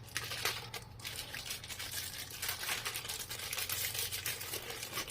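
Small plastic baggie being opened and handled, crinkling and crackling irregularly as the sanding discs are taken out.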